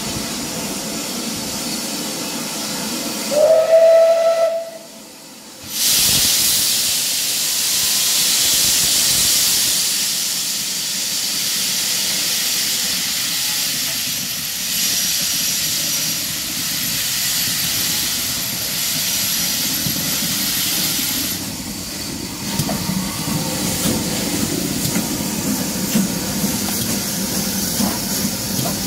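Steam locomotive whistle, one short blast rising slightly in pitch about four seconds in, as the double-headed GWR Small Prairie tank engine and Bulleid Pacific start away. From about six seconds there is a loud steady hiss of steam. From about 22 seconds this gives way to a low rumble with uneven beats as the engines roll past.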